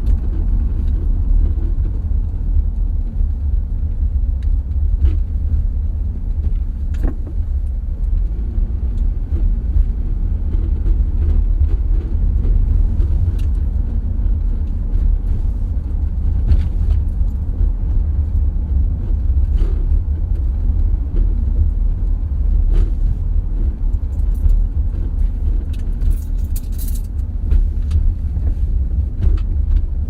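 Car driving over a bumpy road: a steady deep rumble of tyres and suspension, with scattered knocks and rattles as it goes over the bumps.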